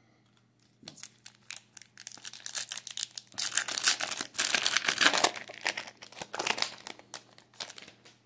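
Foil wrapper of a Topps Merlin Chrome trading-card pack crinkling and tearing as it is ripped open by hand. It starts about a second in, is loudest in the middle and dies away near the end.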